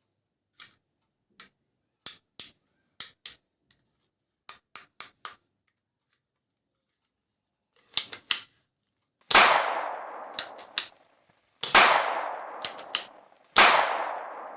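Toy gun clicking: a dozen or so sharp mechanical clicks, then three loud gunshot bangs about two seconds apart, each with a long echoing tail, and a few more clicks between them.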